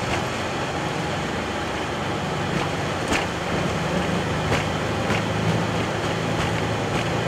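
Boeing 737-800 on its takeoff roll at takeoff thrust, heard from the flight deck: a steady rumble and hum of engines and wheels on the runway. Regular knocks from the wheels start about three seconds in and come faster and faster as the aircraft gains speed.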